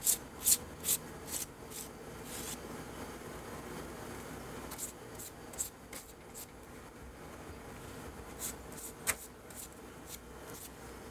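Pastry brush stroking egg wash onto the tops of baked mooncakes: short, soft brushing strokes in three quick runs, with pauses between them.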